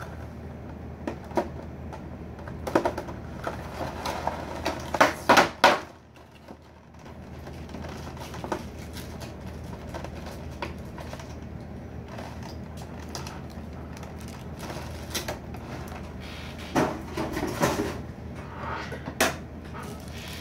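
Clear plastic packaging trays from a boxed statue being handled and pulled apart, with its tape being undone, making scattered clicks and knocks. The loudest clatter comes about five seconds in, and another cluster comes near the end.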